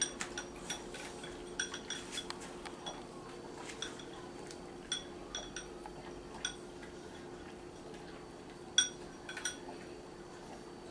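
A dog eating its supper from a bowl: scattered, irregular light clinks against the bowl, the loudest about two seconds before the end.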